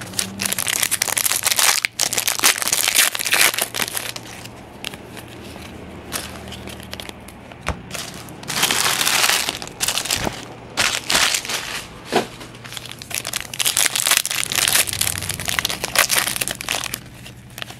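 Foil trading-card pack wrappers crinkling and being crumpled as packs are opened, in irregular bursts, with a few sharp clicks between them.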